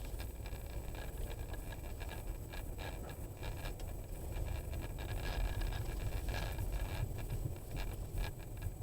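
Low, steady road rumble of a car driving, picked up by a dashcam inside the car, with scattered small clicks and rattles.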